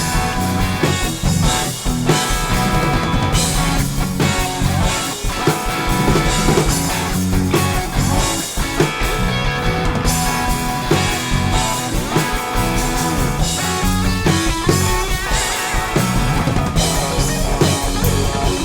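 Rock music played by a band: guitars, bass and a drum kit keeping a steady beat.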